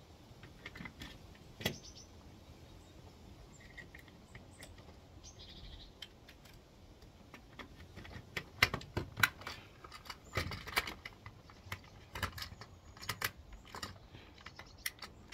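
Small plastic clicks and taps from a Hornby class 47 model locomotive's body shell being handled and pressed onto its chassis; a few at first, then a quick irregular run of them from about eight seconds in.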